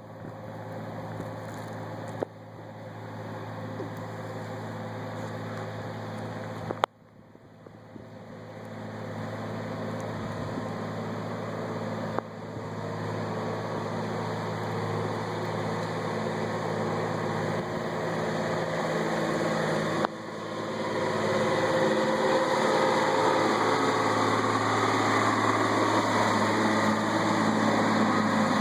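Large front-end loader's diesel engine running steadily, growing louder over the stretch, especially from about two-thirds of the way in. A few sharp clicks, each followed by a brief drop in level.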